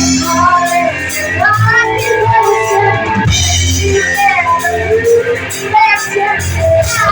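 Live rock band playing a song: drum kit, guitar and a singing voice over steady bass notes.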